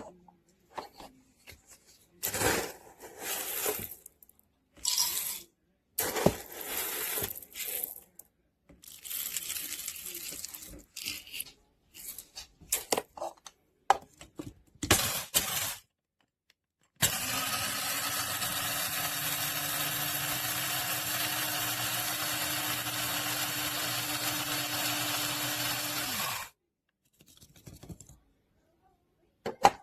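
Amazon Basics electric blade coffee grinder: irregular clattering and rattling for several seconds, then the motor runs steadily with an even hum for about nine seconds and cuts off suddenly.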